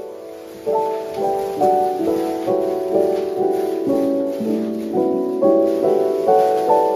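Background piano music, a melody of notes changing about twice a second.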